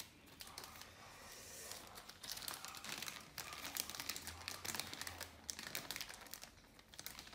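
Thin clear plastic bag crinkling and rustling in irregular crackles as hands open it.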